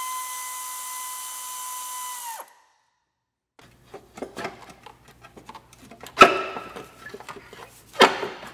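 An air ratchet spinning with a steady high whine, run on the exhaust manifold nuts, that stops about two and a half seconds in. After a short gap come metal clinks and clanks as the exhaust manifold is worked loose and lifted off the engine, with loud clanks about six and eight seconds in.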